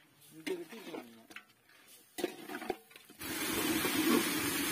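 A hand squishing and rubbing chicken pieces in a wet spice marinade in an aluminium pot, with soft rubs and light clicks. About three seconds in, the steady sizzle of chicken frying in oil starts suddenly.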